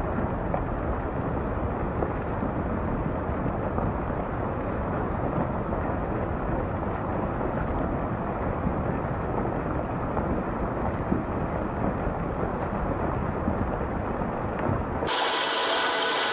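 Rockslide on a mountain road: a steady low rumble of rock and debris coming down, with no words over it. Near the end it cuts abruptly to a brighter, hissing sound from a different clip.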